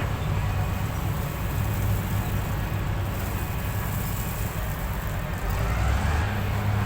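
Excavator's diesel engine running steadily at work. About five and a half seconds in it works harder, growing louder with a faint rising whine.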